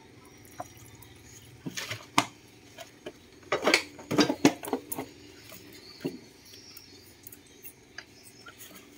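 Light metal clinks and knocks of parts being handled around a brush cutter engine. There are a few strikes about two seconds in, a denser clatter around four seconds, and one more near six seconds, over a faint steady hum.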